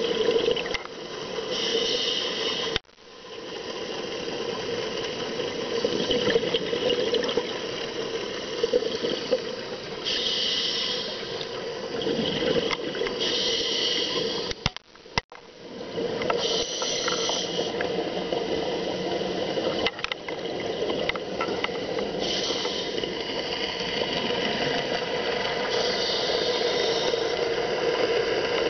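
Scuba regulator breathing heard underwater: a hiss of drawn air every few seconds, with the bubbling rush of exhaled air in between. The sound cuts out sharply and briefly twice.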